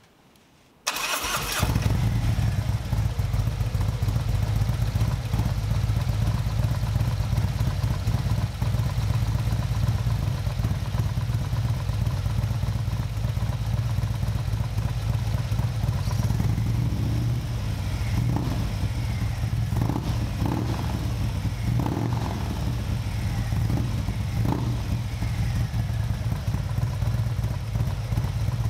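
Harley-Davidson Milwaukee-Eight V-twin with an S&S 475 cam and aftermarket exhaust, started about a second in, then idling steadily.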